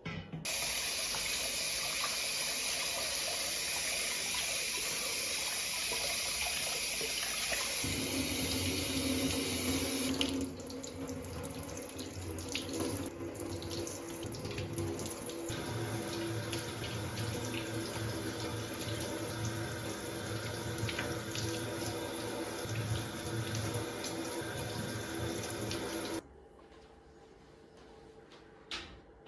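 Kitchen tap running into a sink, the flow's sound changing partway through as the water strikes something else, then shut off near the end.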